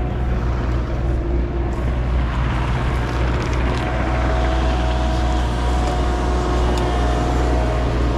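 Skid steer engine running steadily, with a higher steady whine that grows stronger about halfway through.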